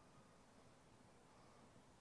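Near silence: faint room tone in a pause between spoken sentences.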